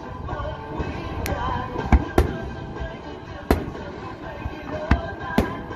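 Aerial fireworks shells bursting, about six sharp bangs spread irregularly across a few seconds, the loudest about two seconds in.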